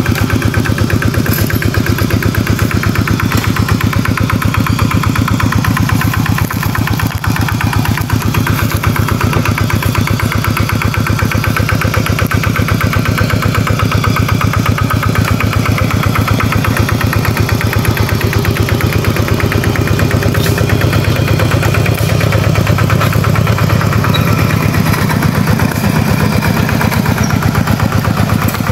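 Two-wheel walking tractor's single-cylinder diesel engine running steadily with an even, rapid chug while it pulls a wooden trailer.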